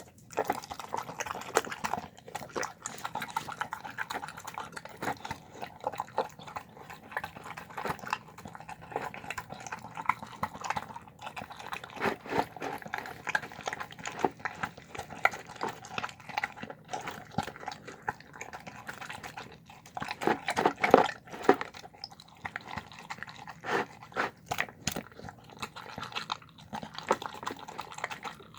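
A dog eating soft food, with rapid wet chewing and smacking full of small clicks. It grows louder for a moment about two-thirds of the way through.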